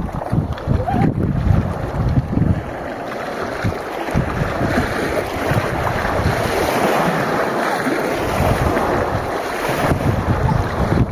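Wind buffeting the microphone in uneven gusts over the first few seconds, then settling into a steadier rushing noise.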